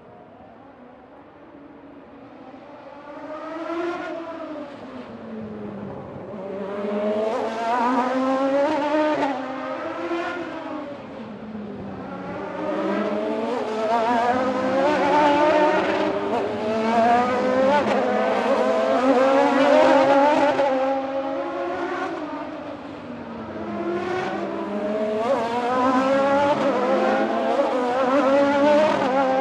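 Racing motorcycles passing at speed, one after another and overlapping, their engines climbing in pitch and dropping back with each gear change. The sound starts faint and builds from about three seconds in.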